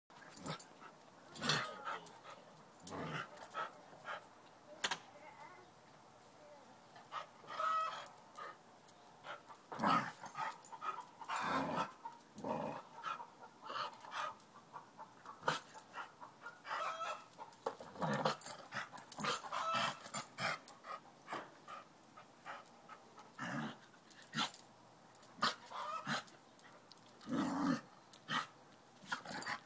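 A dog making short, irregular play noises as it noses and paws at a cat lying on its back.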